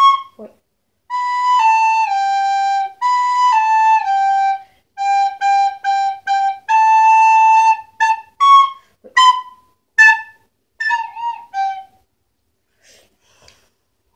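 White plastic soprano recorder played by a beginner: a three-note descending phrase held out twice, then a run of short repeated notes, then choppy, wavering short notes that stop near the end.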